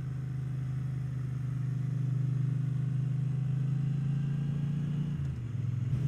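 Triumph Bonneville parallel-twin engine running steadily while riding at road speed. The level builds a little over the first two seconds and dips briefly about five seconds in.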